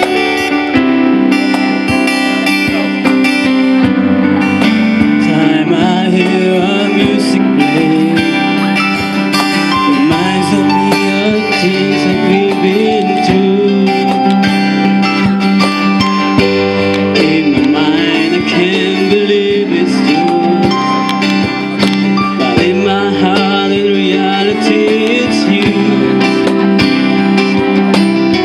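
Live song: a man sings a melody into a microphone, amplified through a PA speaker, over an electric keyboard and a strummed acoustic guitar.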